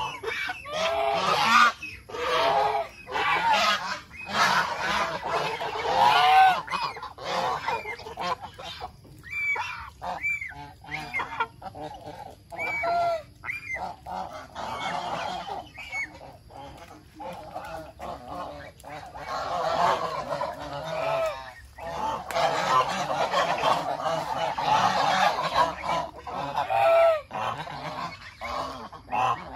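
A flock of domestic geese honking repeatedly, many calls overlapping into a busy chorus at the start and again from about two-thirds of the way through, with fewer single honks in between.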